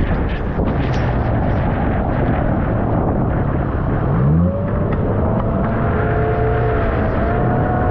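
Outboard motor driving a small aluminium boat through rough water, with heavy wind and water noise. There are a few knocks in the first second. About four seconds in, the engine note rises as the throttle picks up again.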